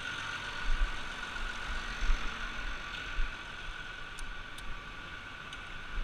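Farm machinery engine running steadily, with a constant whine and irregular low rumbles underneath.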